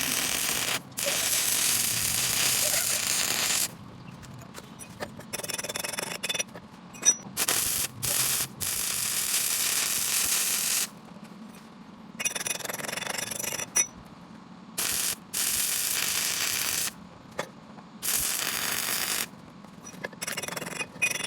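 Stick welding arc crackling and sizzling in a series of short runs, from a fraction of a second to about three seconds each, every run starting and stopping abruptly.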